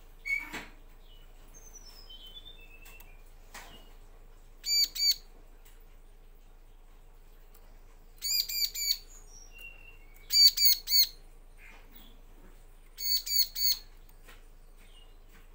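Bar-winged prinia (ciblek) calling: short, sharp chirps given in quick bursts of two to five, with a few thin falling notes between the first bursts. A knock about half a second in.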